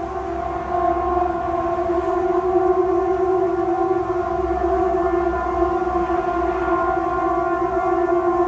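A loud, siren-like drone held at nearly one pitch, with a low rumble beneath it. It swells in over about the first second, then holds steady.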